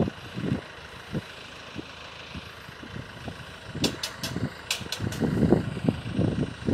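Wind buffeting the microphone in irregular gusts, with a quick run of five or six sharp, high clicks about four seconds in.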